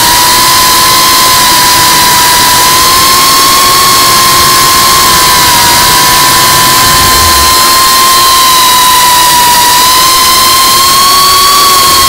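Geprc CineLog35 FPV quadcopter's brushless motors and ducted propellers whining steadily in flight, picked up close by the naked GoPro on its frame, over a loud constant rushing hiss. The whine's pitch wavers slightly up and down with the throttle.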